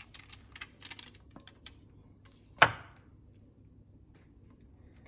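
A spoon clicking and tapping against a pan and bowl as the thick chocolate-nut mixture is scooped out, with one sharp knock about two and a half seconds in.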